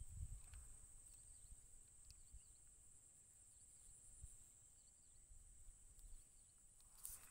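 Near silence: quiet outdoor ambience with a steady high-pitched hum, a few faint chirps and a soft low rumble of wind on the microphone.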